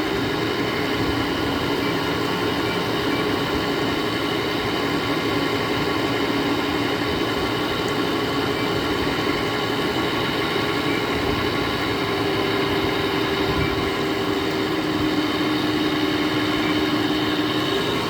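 2009 GE 10,000 BTU window air conditioner running on cool, its compressor and fan giving a steady hum with several constant tones over the rush of air.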